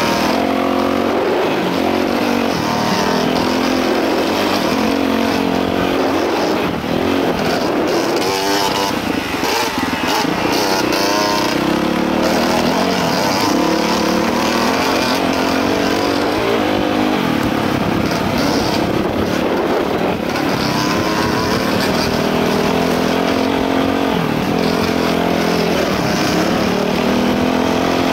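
Dirt bike engine running while riding a dirt trail, its pitch rising and falling over and over as the throttle opens and closes.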